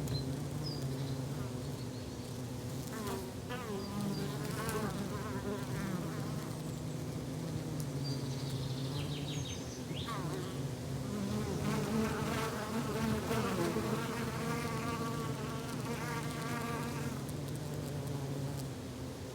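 Flying insects buzzing: a steady low wingbeat hum throughout, with higher buzzes that waver and slide in pitch as insects fly close by, busiest around the middle and toward the end.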